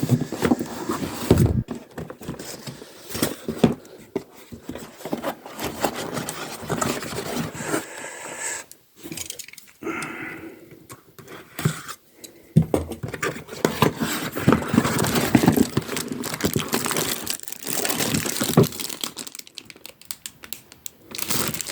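Packaging being handled and opened by hand: crinkling and tearing wrap, scraping, and many small knocks and clicks from items being lifted out of a box.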